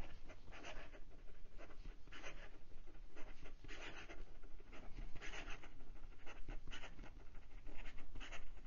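Large steel nib of a Hongdian 960 fountain pen scratching across notebook paper in fast cursive, an irregular run of short pen strokes. The nib writes wet and keeps up with the quick writing without trouble.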